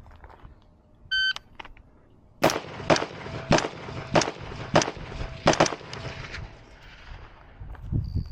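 A shot timer's start beep about a second in, then a string of about seven rifle shots fired roughly half a second apart, the last two in quick succession.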